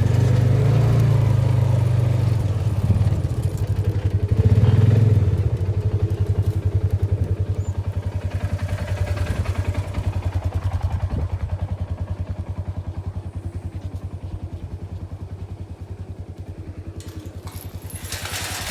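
Vehicle engine running at low speed with a steady low putter that slowly grows quieter.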